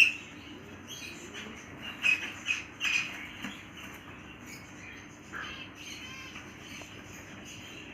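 Pet parrot giving short, sharp squawks and chirps: one right at the start, then a cluster about two to three seconds in, with fainter calls and a quick rattle of chatter later.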